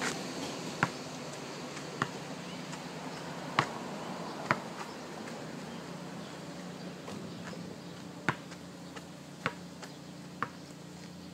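A basketball bouncing and knocking on an outdoor asphalt court, about seven sharp, scattered hits, under a steady faint low hum.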